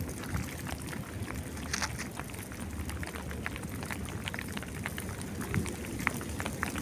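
Rain pattering, many small scattered drop ticks over a steady hiss, with wind rumbling on the microphone.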